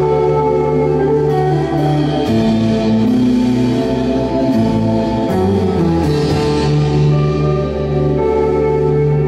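Live rock band playing an instrumental passage: electric guitar and bass holding chords that change every couple of seconds, with light drum and cymbal strokes.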